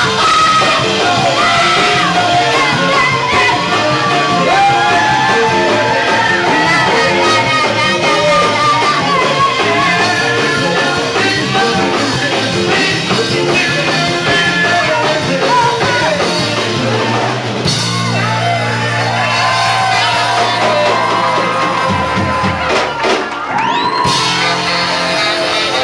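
Live band performing a gospel-soul song: lead and backing vocals over drums, bass, keyboards and guitar, with some shouting, in a large room. About eighteen seconds in the band thins to held low notes, and the full sound comes back near the end.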